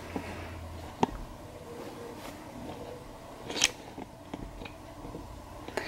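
Quiet room with light handling noise and a few sharp clicks from a phone on a handheld tripod grip being held and moved; the loudest click comes about three and a half seconds in.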